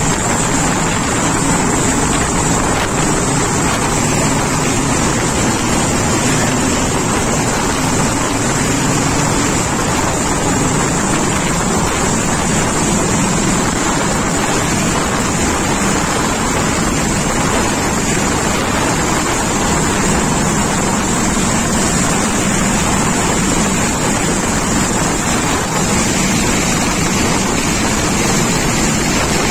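Rescue helicopter hovering overhead during a winch hoist: steady rotor and turbine noise with a constant high whine, and rotor downwash buffeting the microphone.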